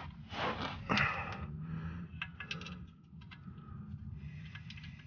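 A soft rustle of movement, then faint, scattered light clicks and taps as the metal oil drain plug is started by hand back into the oil pan of a 2013 Chevy Malibu.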